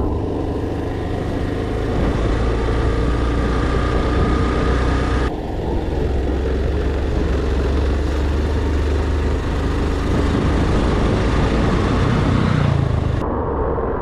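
Road vehicle on the move: a steady low engine and road rumble, with the engine note rising briefly near the end.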